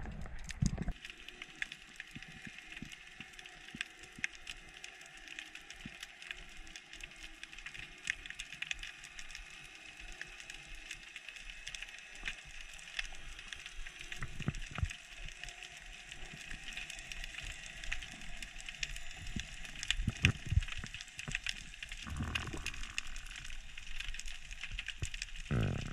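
Underwater reef ambience heard through a submerged camera: a steady, dense crackling of tiny clicks. Near the end come a few low, muffled thumps.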